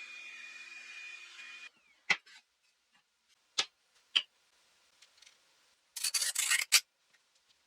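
A miter saw whirring with a thin steady whine, cut off abruptly after under two seconds. A few sharp knocks of wood follow, and near the end a quick run of rough rubbing strokes on wood.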